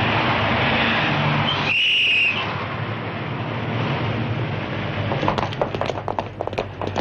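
Street traffic noise from passing cars, broken about two seconds in by one short, shrill blast on a traffic officer's whistle. From about five seconds in, a quick irregular run of sharp taps comes in over quieter traffic.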